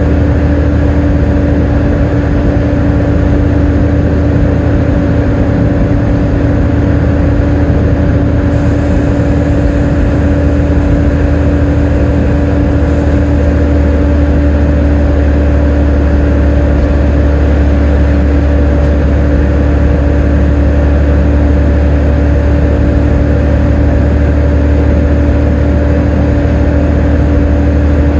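Volvo B7TL double-decker bus running steadily, a low engine drone under a constant high whine that does not change in pitch.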